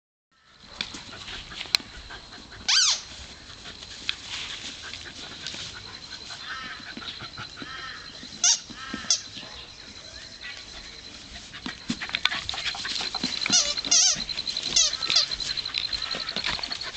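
A dog's squeaky toy squeaking again and again as two dogs chew and grab at it, single short squeaks spread out, then a quick run of squeaks a few seconds before the end.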